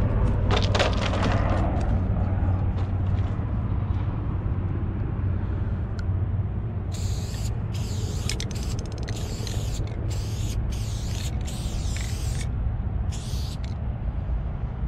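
Aerosol spray-paint can hissing in several short bursts with brief gaps, over a steady low rumble. A quick run of clicks comes near the start.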